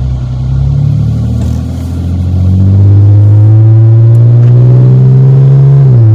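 Dodge Magnum's engine pulling under acceleration while driving. A loud, steady note climbs slowly in pitch from about halfway in, then drops sharply just before the end.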